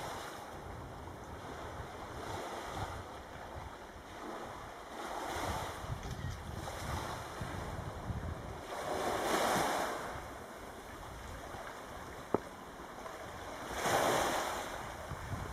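Small waves washing up on a pebble beach, swelling about every four to five seconds, with wind rumbling on the microphone. A single sharp click about twelve seconds in.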